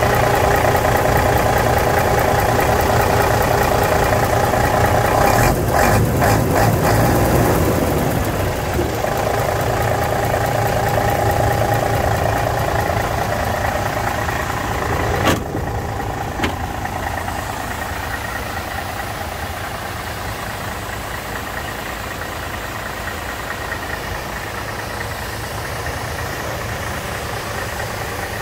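Mercedes-Benz 3031 tipper truck's diesel engine idling steadily. A few clicks come about six seconds in, and a sharp knock around halfway through, after which the engine sounds a little quieter.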